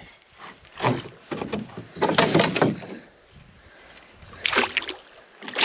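Splashing and knocking around a canoe in short, separate bursts as a hooked walleye is brought alongside and landed.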